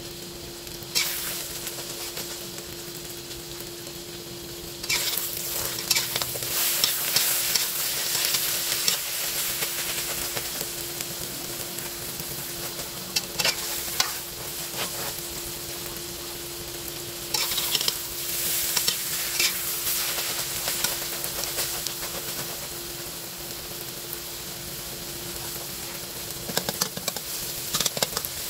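Egg omelet frying in oil in a wok, sizzling steadily under a steady hum. From about five seconds in, a metal spatula scrapes and clanks against the wok in bursts as the egg is broken up and stirred.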